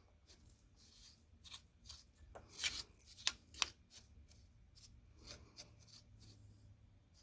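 Scattered light clicks and knocks over a faint steady low hum, the loudest cluster of knocks about two and a half to three and a half seconds in.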